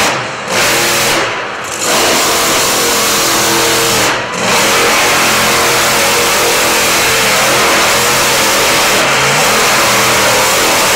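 Monster truck engine revving hard as the truck is driven through a freestyle run. The throttle is lifted briefly three times in the first four seconds, then held open for the rest.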